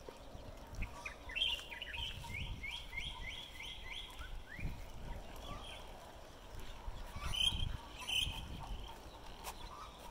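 Strong gusty wind buffeting the microphone with a low rumble. Over it a bird chirps in a quick series of short calls, about four a second, then gives two sharper calls near the end.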